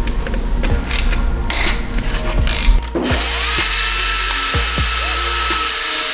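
A ratchet clicking as it works bolts on an engine block. About halfway through, a cordless power tool spins up and runs at a steady pitch for about three seconds, driving out a bolt, then stops near the end.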